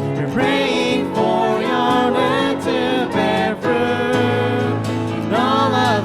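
Worship band music with a voice singing a drawn-out melody line over sustained chords.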